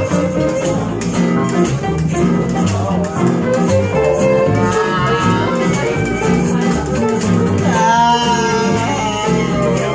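Live acoustic guitar music with shakers keeping a steady beat. A voice sings over it in the second half, most strongly about eight seconds in.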